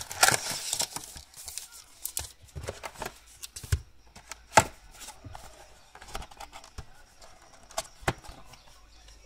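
Foil trading-card packs crinkling as they are handled and set down on a wooden table, with cardboard box handling. Rustling at first, then scattered light taps and clicks, one sharper about four and a half seconds in.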